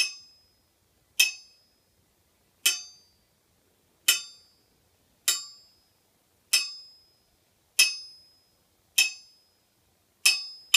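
Rebound test on an anvil: a small steel ball dropped onto the anvil's face nine times, a little over a second apart, each strike a sharp, bright ping with a short ring. The clear ring, not a dull thunk, is the sign of a hard steel face rather than cast iron.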